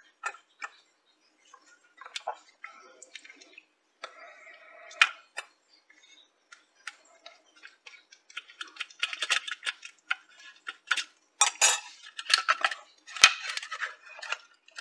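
Metal tweezers and a micro-USB plug clicking and scraping against a loose micro-USB charging port on a radio's circuit board as the plug is worked into it. There are a few scattered clicks at first, then a dense run of small clicks and scrapes in the second half.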